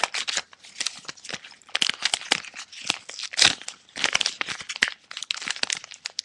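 A heavy-duty envelope being torn open by hand, its paper and extra sealing crinkling and ripping in irregular bursts, with the sharpest rips about two and three and a half seconds in.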